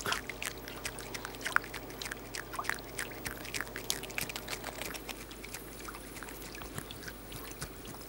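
Eurasian beaver feeding at the water's edge: quick wet chewing clicks and crunches, thickest in the first half, with water trickling and dripping.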